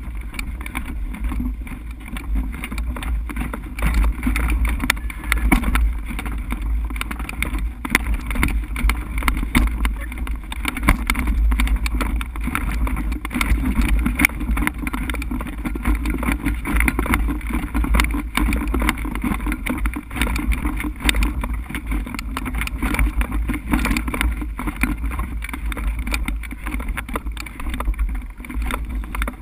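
Wind buffeting the microphone of a camera mounted on a hang glider, a rumble that surges and eases with the gusts.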